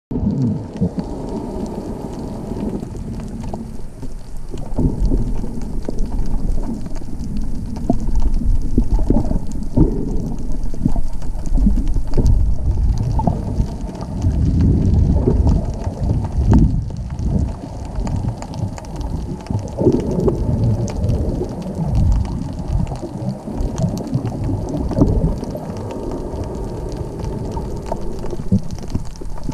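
Muffled underwater rumble and sloshing of moving water heard through an underwater camera's housing, swelling and easing irregularly every few seconds, with faint crackling above it.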